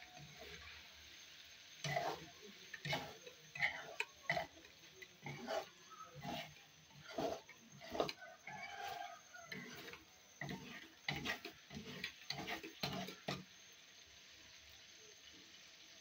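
Flat metal spatula scraping and knocking against a metal kadhai while eggs scrambled in tomato masala are stirred and broken up, in irregular strokes about two a second that stop a couple of seconds before the end. A faint hiss of frying runs underneath.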